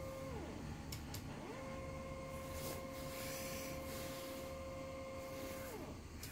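Stepper motors of a homemade Arduino CNC laser engraver built from drawer slides, whining at a steady pitch as they drive the axes. The whine slides down to a stop about half a second in, slides back up at about a second and a half, and slides down again near the end.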